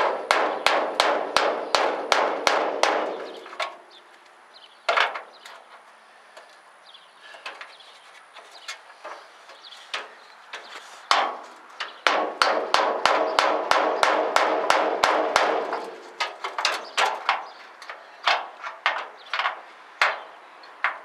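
Hammer blows on metal, a quick series of about three or four strikes a second in two long runs with a few single blows between, as a socket is pounded onto a stuck bolt.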